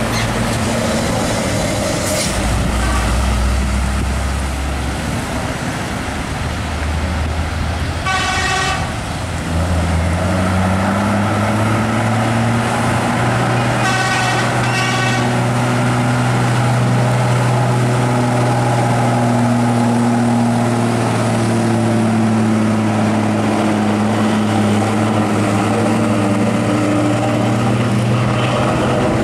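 Heavy diesel cargo trucks running through a bend, the engine note climbing as one pulls away about ten seconds in and then holding steady. A horn toots briefly about eight seconds in and again in two short blasts around fourteen seconds.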